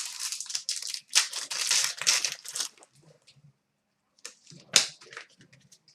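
Foil wrapper of a hockey trading-card pack crinkling and tearing open for the first two or three seconds, followed by a few sharp clicks and snaps as the cards are handled.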